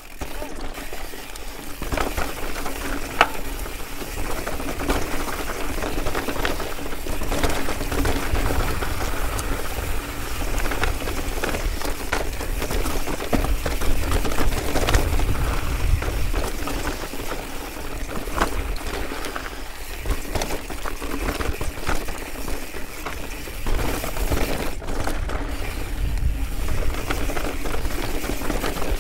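Mountain bike riding down a rough rocky trail: a steady rush of tyre and trail noise with frequent clicks and rattles from the bike over the rocks, and low rumbling surges now and then.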